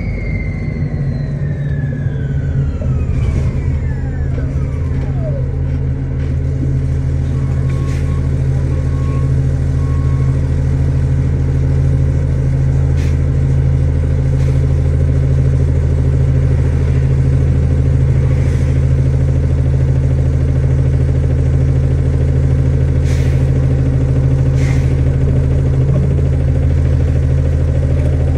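2009 Orion VII Next Generation hybrid bus: the hybrid electric drive's whine falls in pitch over the first few seconds as the bus slows, then the diesel engine idles steadily, with a few clicks and three short beeps about eight seconds in. Near the end the whine starts to rise again as the bus pulls away.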